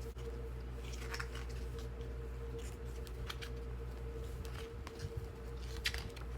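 A few brief papery rustles and soft handling clicks as booklet pages are turned and handled, over a steady background hum.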